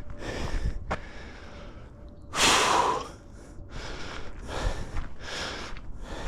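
A hiker breathing hard and heavily while climbing, a series of loud in-and-out breaths about once a second, with one strong huffing exhale about two and a half seconds in.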